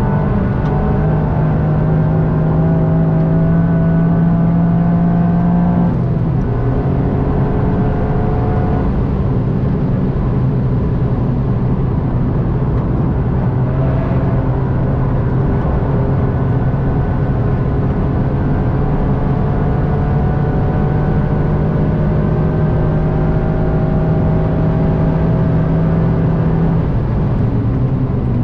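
Toyota GR Yaris's turbocharged three-cylinder engine pulling hard under load, its pitch climbing slowly. The pitch drops sharply about six seconds in at an upshift, climbs slowly again for a long stretch, and the note changes near the end as the driver comes off the throttle.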